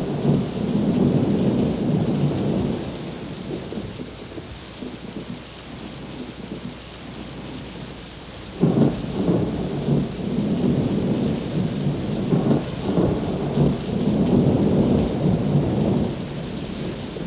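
Thunderstorm: steady rain with rolling thunder. A rumble runs through the first few seconds, a sudden clap comes about nine seconds in, and rumbles roll on until near the end.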